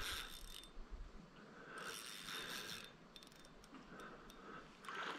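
Fly reel's click-and-pawl ratchet, faint, clicking in three short bursts as line is worked in while a hooked trout is being played.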